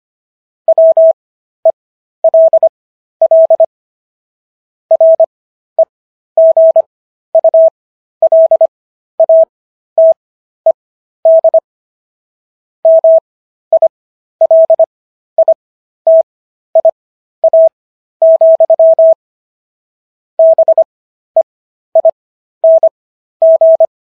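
Morse code sent as a single steady beep tone of about 650 Hz, switched on and off in short and long elements (dits and dahs) grouped into letters with silent gaps between. It spells out the text of the Second Amendment at 15 words per minute with Farnsworth spacing.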